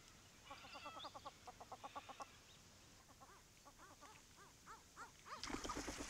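Australian wood duck calling, faint: a quick run of repeated notes, then a spaced series of short calls that rise and fall in pitch. Near the end comes a splash and wingbeats as the duck takes off from the water.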